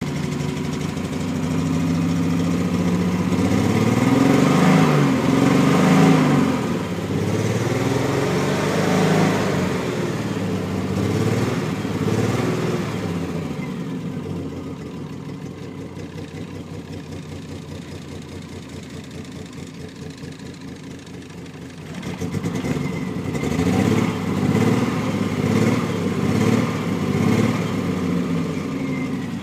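Triumph TR6's 2.5-litre straight-six engine being revved up and down, settling to a quieter idle about halfway through, then revved again near the end. The engine is misfiring.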